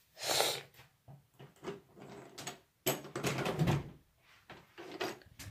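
Irregular knocks, bumps and rustles from a handheld phone being handled and moved about, with a sharp bump just after the start and a louder cluster of them about three seconds in.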